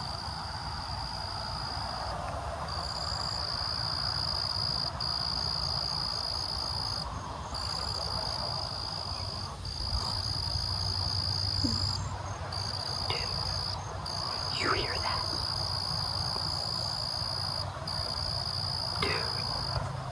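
Insect chorus of crickets: a steady high trill at one pitch that drops out briefly every second or two. Underneath there is a low rumble, and a few faint short calls come in the second half.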